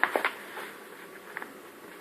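Bosch SMS69M58EU dishwasher running mid-wash on its TurboSpeed cycle: a steady spray and splash of water inside the tub, with a cluster of sharp ticks at the start and one more a little over a second in.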